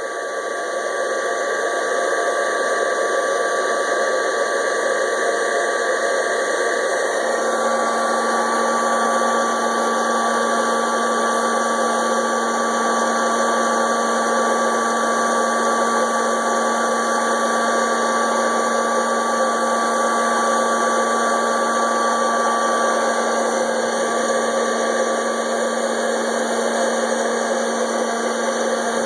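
Hot-air popcorn popper's fan and heater running steadily, roasting green coffee beans as they approach first crack. A low steady hum joins about seven seconds in.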